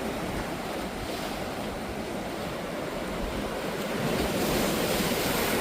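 Sea waves breaking and washing in on the beach, a steady rush of surf that swells louder about four seconds in as a wave comes ashore.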